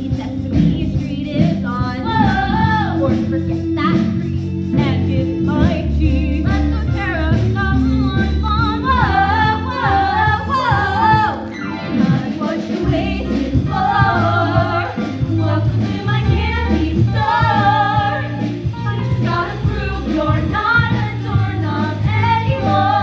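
Several young women singing a show tune together over a musical accompaniment with a steady bass beat.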